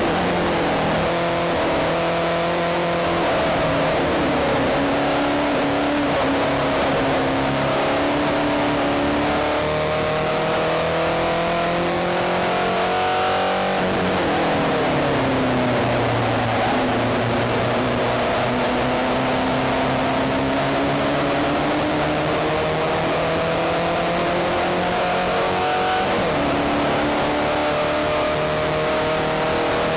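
Spec Racer Ford's four-cylinder engine at full racing pace, heard from the car's own cockpit: the revs climb steadily for several seconds, fall sharply about halfway through, then climb again for a long pull with a brief dip shortly before the end.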